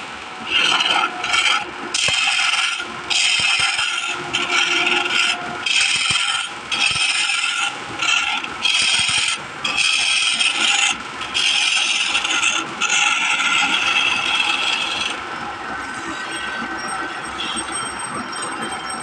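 Wood lathe turning a long spindle while a hand-held chisel cuts it, sending off shavings. The cuts come as repeated bursts of scraping noise, each about a second long with short breaks between them. About three-quarters of the way through the cutting stops, and only the lathe is heard, running more quietly with a faint steady whine.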